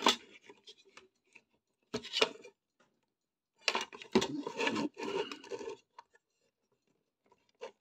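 Handling noise: the plastic case of an old power supply being moved and rubbed against a wooden tabletop, with a short scrape about two seconds in and a longer stretch of rubbing and scraping from about four to six seconds, then a few faint clicks near the end.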